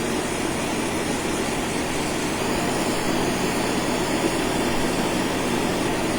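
Steady machine hum with an even rushing air noise from powder-coating equipment, running without change.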